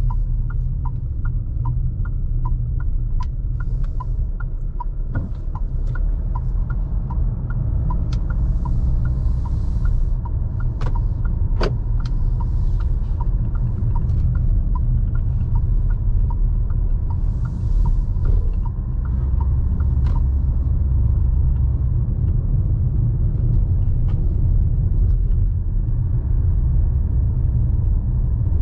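Fiat Toro Volcano 2.0 diesel pickup being driven: a steady low rumble of engine and road. Over it an even ticking of about two ticks a second runs for roughly the first two-thirds and then stops.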